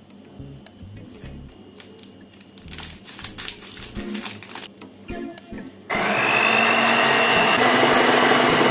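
Light kitchen clicks and handling noises, then about six seconds in an electric kitchen blender switches on and runs at a steady speed. Its motor whine rises briefly as it spins up, then holds one pitch.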